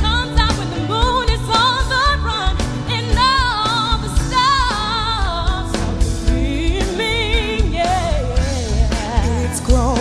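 Pop-soul band accompaniment with a solo voice singing, holding notes with strong vibrato and bending runs.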